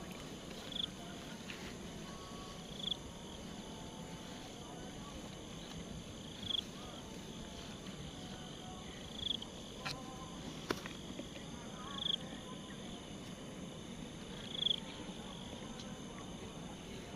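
Night insects: a steady high cricket trill, with a short, louder chirp at the same pitch every two to three seconds, and two faint clicks a little past the middle.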